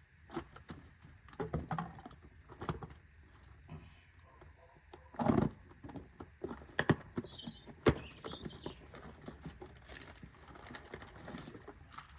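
Scattered clinks, knocks and clicks of tools and parts being handled. The loudest are a heavier knock about five seconds in and a sharp click near eight seconds.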